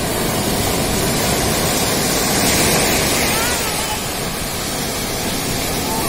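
Sea surf breaking and washing up the sand: a steady rushing hiss that swells about two to three seconds in as a wave breaks.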